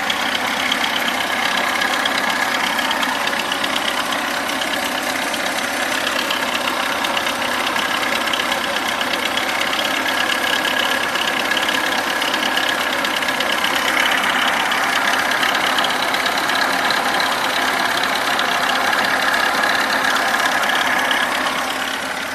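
VAZ-21011's 1.3-litre four-cylinder engine running with a rapid knocking from inside the engine, steady throughout and dipping slightly in level near the end; the noise is put down to a pump.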